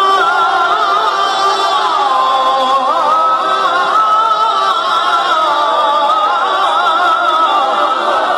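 A single voice reciting the Quran in a slow, ornamented melodic style, holding long wavering notes with no clear breaks between words.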